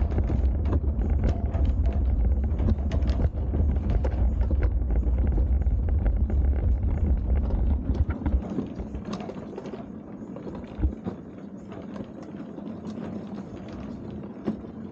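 Summer toboggan sled running down a steel trough track: a steady low rumble with frequent clicks and knocks as it rides the track. The rumble eases off about eight seconds in, leaving lighter rattling and a single knock a few seconds later.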